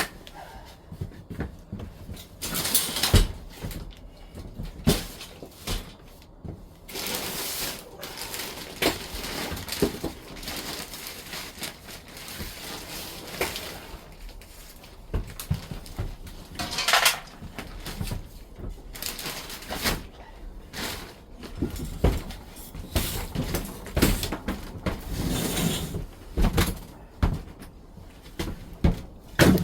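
Irregular knocks, clatters and rustling of objects being handled, at no steady rhythm.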